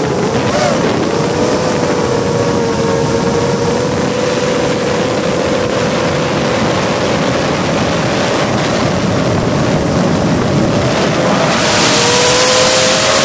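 Motors and propellers of a GEPRC Mark4 5-inch 6S FPV quadcopter whining steadily in flight, heard from the onboard camera, with air rushing over the microphone. The pitch dips and wavers briefly about half a second in, and the rush of wind grows louder about a second and a half before the end.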